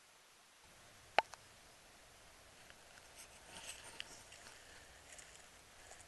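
A single sharp click about a second in, then faint crunching and rustling of footsteps on dry fallen leaves from about three seconds in.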